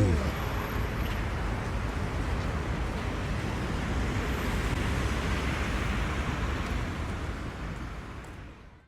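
Steady background rumble and hiss, fading out over the last couple of seconds.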